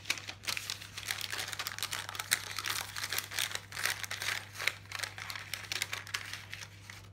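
Plastic blind-bag packet of toy bricks crinkling and tearing as it is handled and ripped open by hand, in a dense run of irregular crackles.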